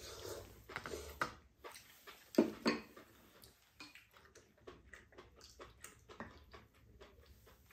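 Two people eating a soupy stew at a table: slurping and chewing, with many light clicks of chopsticks and spoons against bowls. The loudest sounds come about two and a half seconds in.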